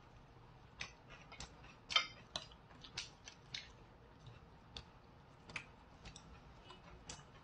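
Quiet, irregular clicks and taps of chopsticks and tableware while eating, one or two a second, with the sharpest click about two seconds in.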